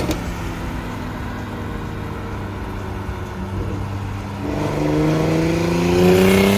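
BMW M340i's B58 turbocharged inline-six, fitted with a big single turbo, running steadily, then revving up with a rising pitch from about four and a half seconds in.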